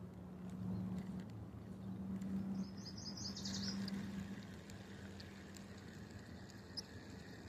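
A bird's quick high trill of about eight chirps, some three seconds in, over a low steady motor hum that swells and then fades out near the end.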